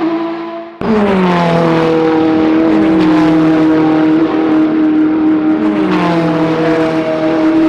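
Ferrari 488 GTE race cars' twin-turbo V8 engines running hard at high revs. The sound fades and is abruptly replaced by a louder engine note about a second in. The pitch drops twice, about a second in and again near the end, over a steady engine tone.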